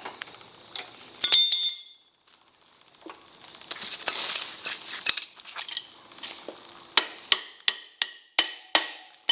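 Hammer tapping on steel parts of a motorcycle's front wheel, with metallic clinks. About a second in there is one bright ringing clink. From about seven seconds in comes a steady run of sharp, ringing taps, two or three a second.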